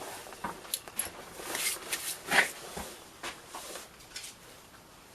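Scattered light clicks and short clattering rustles of hand tools and parts being handled, with no machine running.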